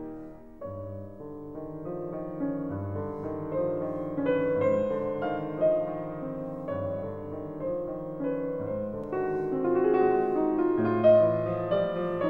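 Background piano music: a gentle melody over a low bass note struck about every two seconds.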